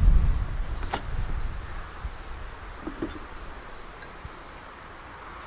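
Insects chirring in one steady high note. A low wind-like rumble fades out over the first second or two, and there is a sharp click about a second in.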